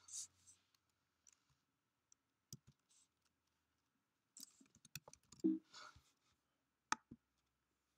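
Quiet, irregular clicks and taps of typing on a computer keyboard and clicking a mouse, bunched in a short burst a little past halfway. A short low hum comes in about five and a half seconds in.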